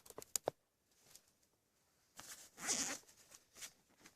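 A bag zipper is pulled open in one stroke of under a second, about two seconds in. A few light clicks and taps of gear being handled come before it.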